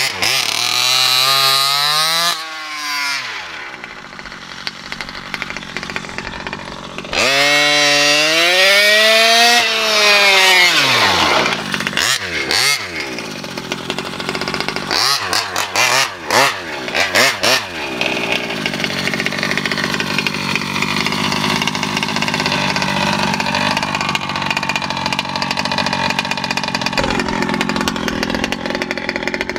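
Kraken VEKTA.5 1/5-scale RC truck's gas engine revving up and falling back twice in long swells, the second about a quarter of the way in. A run of sharp knocks follows, then the engine runs more steadily for the rest.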